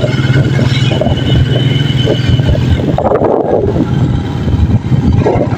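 Small motorcycle engine running while riding along a dirt road, with wind buffeting the microphone; the engine hum eases about halfway through.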